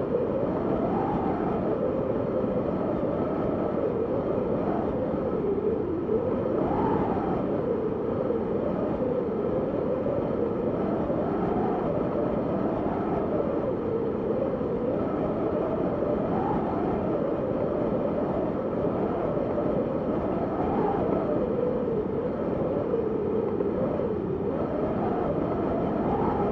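Wind blowing steadily, with a whistling tone that rises and falls in pitch every second or two over a continuous rushing noise.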